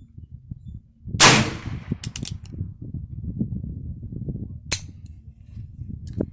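A Heritage Rough Rider .22 LR single-action revolver with a 16-inch barrel fires one loud shot about a second in, with a short ringing tail. It is followed by a few fainter sharp clicks or knocks over a low rumble.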